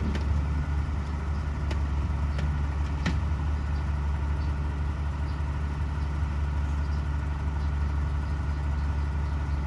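Heavy diesel engine running steadily at idle, with a few faint clicks in the first few seconds.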